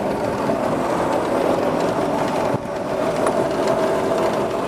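A 1977 Ranger boat's engine idling with a steady mechanical hum, dipping briefly about halfway through.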